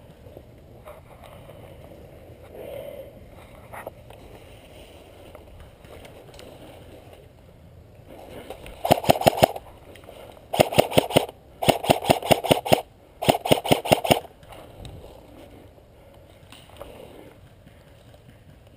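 Airsoft rifle firing four full-auto bursts of rapid clicking shots, each about a second long, starting about nine seconds in.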